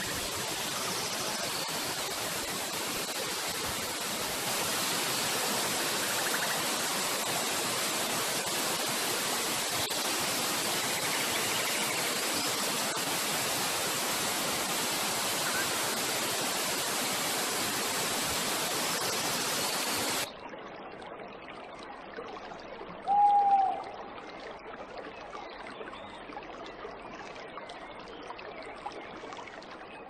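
Waterfall pouring into a pool: a steady, full rush of falling water. It cuts off abruptly about twenty seconds in, leaving a quieter, duller background, and about three seconds later comes a single short, loud tone that bends in pitch.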